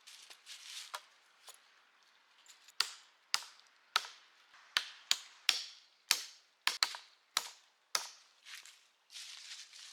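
Wood being chopped with a hand tool: a run of about a dozen sharp strikes, roughly two a second, starting about three seconds in, with softer rustling before and after.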